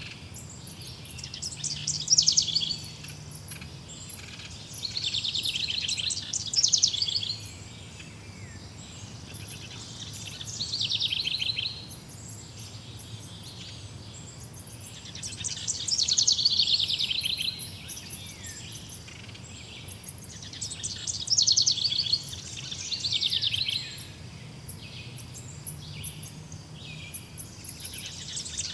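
Wild birds singing: fast trilled phrases, each about a second or two long and falling in pitch, repeat every few seconds, with thin, very high chirps running above them.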